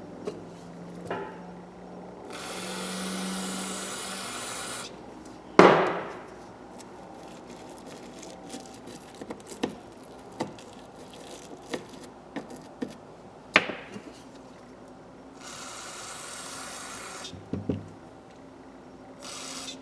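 Small hand-tool parts being worked and cleaned on a bench: two hissing blasts of about two seconds each, one near the start and one near the end, with small metal clicks and taps throughout and two sharper clanks, around a third and two thirds of the way through. The ratchet's head is being cleared of packed-in rubbing compound.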